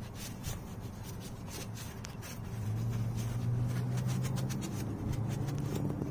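Shop towel rubbing over the bare front wheel hub of a Hummer H2 in quick repeated wiping strokes, wiping off brake cleaner and rust. From about two and a half seconds in, a low steady hum comes up underneath and is the loudest sound.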